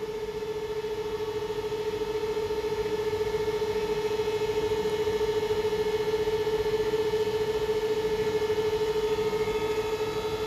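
A machine's steady hum at one unchanging pitch with overtones, growing slightly louder towards the middle.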